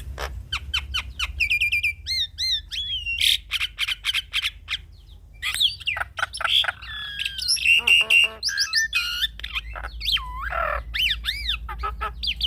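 Javan myna singing a busy, varied run of sharp clicking notes, rising and falling whistles and harsh squawks, over a steady low hum.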